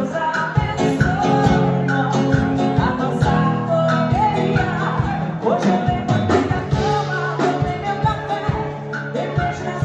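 Live band music with a steady beat, guitar and singing.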